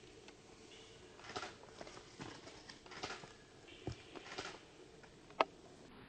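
Faint scattered rustles and light ticks, with one sharper click near the end.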